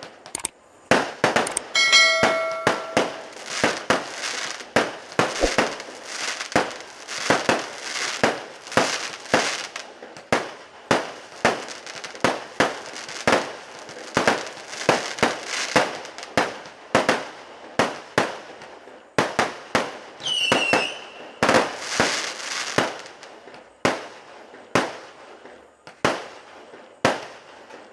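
Fireworks banging in rapid, irregular succession, about two to three sharp bangs a second. A brief steady whistle sounds about two seconds in, and a whistle falling in pitch sounds around twenty seconds in.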